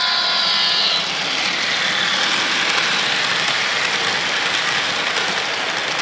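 Model locomotive sound decoder for a Fell diesel, played through the model's small speaker: a held multi-note horn that cuts off about a second in, then the recorded diesel engine sound mixed with the rolling noise of the train passing on the track.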